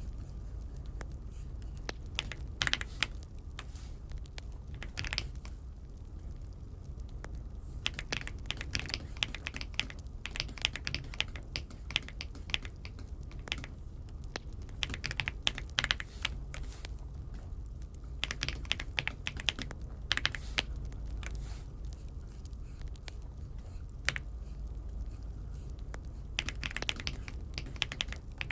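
Typing on an Aula F75 mechanical keyboard: irregular runs of key clicks broken by short pauses.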